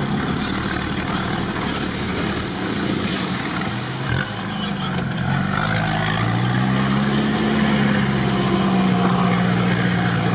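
Off-road vehicle engine under load, heard from inside the cab while it drives through water, with its pitch climbing about four and a half seconds in and holding higher through the rest, over a steady wash of noise.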